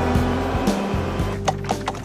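Background music with a shifting low bass line. About one and a half seconds in, a run of sharp clicks begins, several a second.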